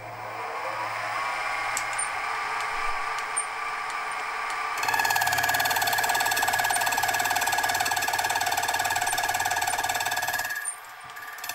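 Small milling machine running a slitting saw: the motor whine climbs in pitch as the spindle spins up, then holds a steady whine with several tones. About five seconds in it turns louder and shriller, dips briefly near the end, then picks up again.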